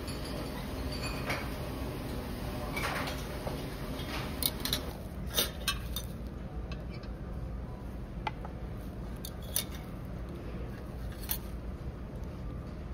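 Metal serving tongs clinking against stainless steel buffet trays and plates: a handful of short, sharp clinks over a steady low background hum.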